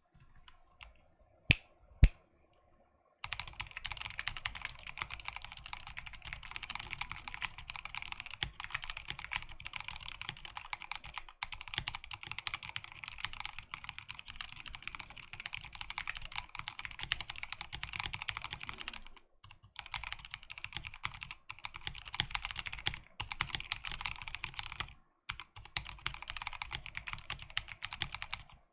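Drop Alt 65% mechanical keyboard with lubed Kailh Speed Silver linear switches, plate-mounted, being typed on. A few separate clicks, two of them loud, come first; then about three seconds in, fast continuous typing starts, pausing briefly twice.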